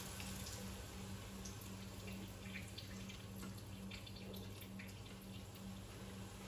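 Liquid from a tin of sweetcorn trickling and dripping into a stainless steel sink as the tin is drained, with faint scattered drips, over a steady low hum.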